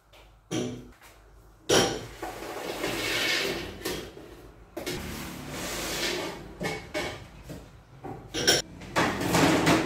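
Raw groundnuts poured from a tray into a metal pot of hot garri: a noisy pour that begins about two seconds in and runs in long spells, with sharp clatters near the end.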